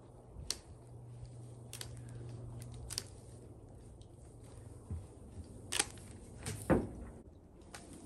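Scattered sharp clicks and snaps of a pole pruner working among spruce branches, with the loudest snap and a dull knock near the end. A faint low hum runs under the first half.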